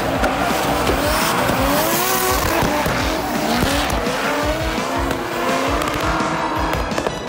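Drift cars' engines revving hard, pitch swinging up and down over and over as they slide sideways in tandem, over a steady squeal and hiss of spinning tyres.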